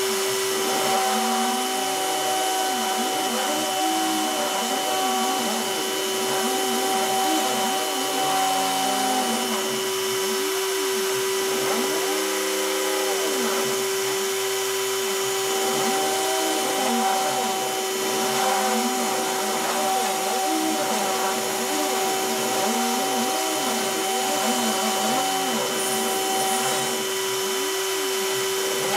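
Hobby C-Beam CNC router with a rotary-tool spindle cutting cardboard. The spindle motor gives a steady whine, while the machine's stepper motors sing in tones that glide up and down over and over as the bit traces curves.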